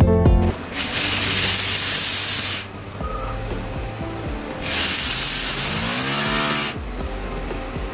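Two long blows of breath through an empty pen barrel, each a strong hiss of air lasting about two seconds, aimed at a plastic bottle cap on a wire to spin it. Near the end of the second blow a faint hum rises and falls in pitch as the cap spins.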